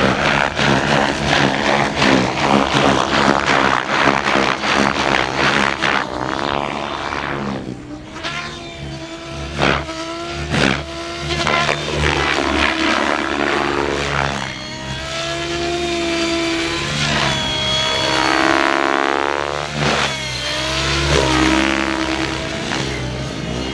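Gaui X7 electric RC helicopter flying hard manoeuvres: its rotor blades and motor give a whine that sweeps up and down in pitch again and again, with rapid chopping from the blades through the first several seconds.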